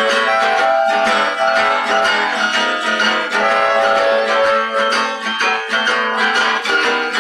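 Acoustic guitar strumming with a harmonica playing held notes over it: an instrumental blues break with no singing.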